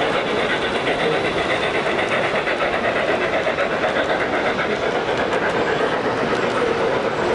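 O-gauge (1:43) model train running past: a model heavy Union Pacific steam locomotive hauling freight cars, a steady running noise with a fast, even rhythmic beat.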